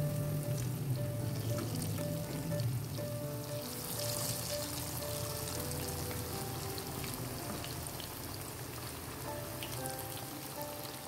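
Boiled cassava pieces deep-frying in hot oil: a steady sizzle with many small crackles, turning brighter and louder about four seconds in. Soft background music with held notes plays underneath.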